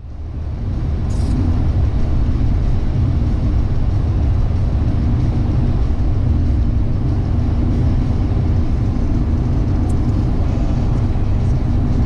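Steady low rumble of a car driving along a snow-covered road, heard from inside the cabin: tyre and engine noise that fades in over the first second or so and then holds level.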